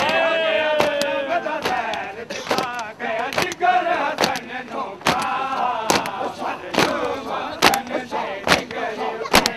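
A crowd of mourners doing matam: hands striking chests together in a steady beat, a little more than once a second, with men's voices chanting and calling out over it.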